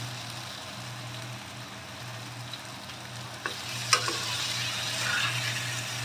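Bell peppers sizzling in oil in a frying pan, with a steady low hum under the hiss. Two sharp clicks, about three and a half and four seconds in, as a utensil knocks against the pan while the peppers are lifted out.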